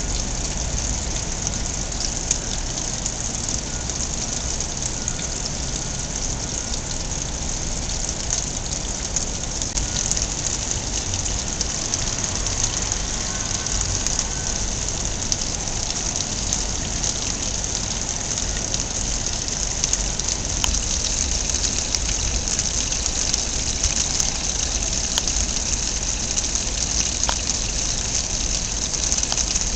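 Water pouring steadily from a lion-head wall fountain's spout and splashing into a metal trough below.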